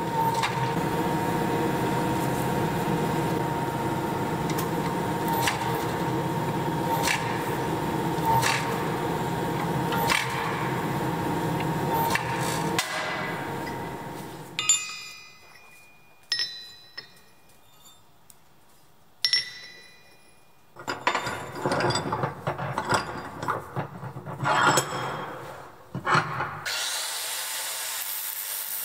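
A forging press runs steadily with a sharp knock every second or so as hot steel is pressed. It stops about halfway, followed by scattered clinks and then a busier run of metal knocks and scrapes. Near the end an AEG angle grinder starts cutting steel.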